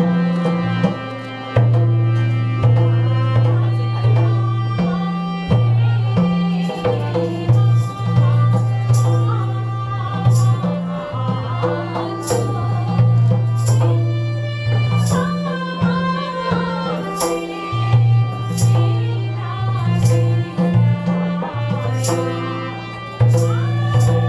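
Live Nepali folk music: a keyboard holds sustained, organ-like notes while a madal hand drum and high percussion strikes keep a steady beat. A woman's singing voice joins in the later part.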